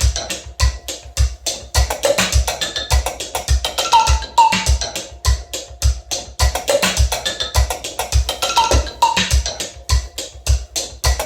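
Homemade mechanical acoustic beat sequencer playing a looping percussion pattern: rapid sharp clicks and wooden knocks over evenly spaced low thumps, with short pitched notes recurring within the loop.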